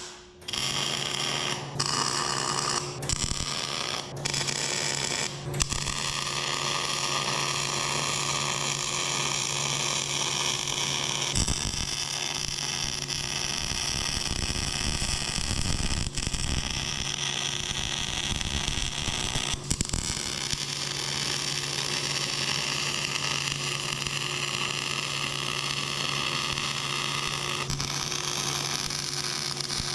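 Electric arc welding on steel truck-bed hinges: a crackling, hissing arc over a steady electrical hum. It comes in several short tack welds with breaks, then settles into a long continuous bead.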